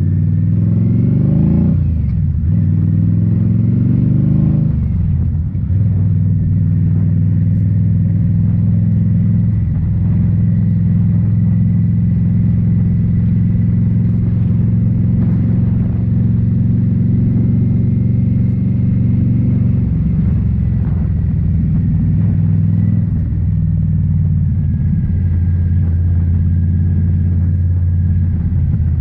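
2018 Indian Scout Bobber's V-twin through Rinehart slip-on mufflers, rising in pitch twice and dropping back after each rise in the first five seconds as it accelerates through the gears. It then runs at a steady cruising speed with small changes in throttle.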